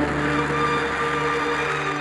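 Orchestral music holding a sustained chord, with no firework bursts.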